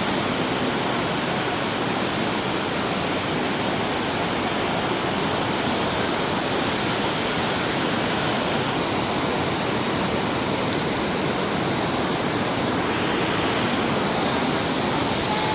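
Floodwater of a swollen river rushing steadily.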